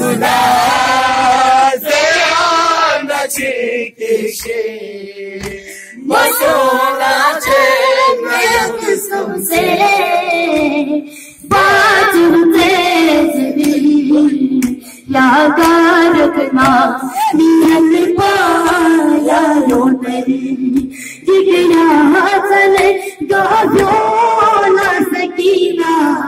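A boy's voice chanting a Shia mourning lament (noha) for Imam Hussain into a microphone, in long sung phrases broken by short pauses.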